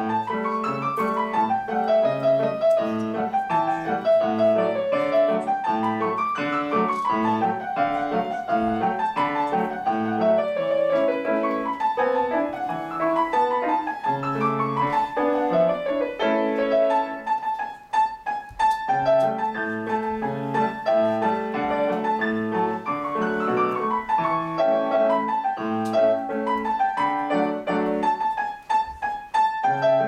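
Grand piano played solo: quick runs of notes rising and falling in the upper range over lower sustained notes, with brief lulls about 18 seconds in and again near the end.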